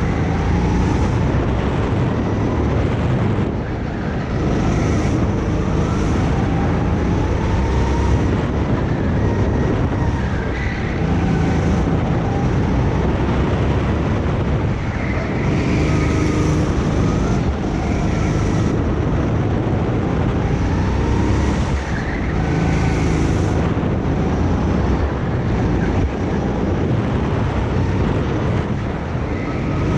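Go-kart engine running at speed, its pitch rising and falling every few seconds as it revs out and backs off through corners. Wind buffets the microphone throughout.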